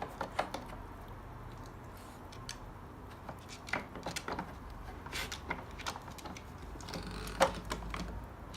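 Irregular clicks and knocks of the drawers of a Nina Ottosson Dog Casino puzzle toy as a dog works at them, the loudest knock near the end.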